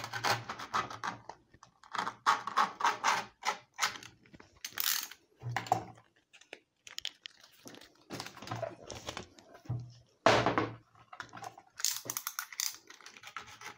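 Utility knife cutting through the excess skateboard grip tape along the deck's edge: a run of short, irregular scratchy strokes with brief pauses between them.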